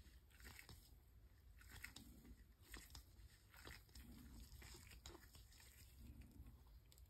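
Near silence, with faint irregular soft clicks and sticky rubbing from nitrile-gloved fingers spreading wet epoxy over a plastic ornament.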